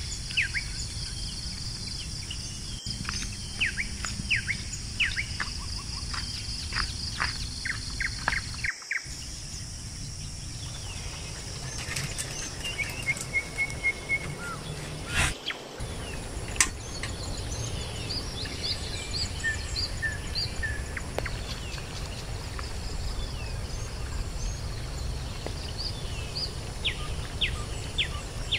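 Birds chirping and calling at dawn, many short falling notes and a brief trill, over a steady high insect drone that stops about a third of the way in. A low rumble runs underneath, and the sound breaks off briefly twice where the recording is cut.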